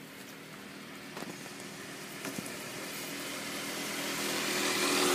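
A motor vehicle's engine running steadily and growing louder as it approaches, with a couple of faint ticks early on.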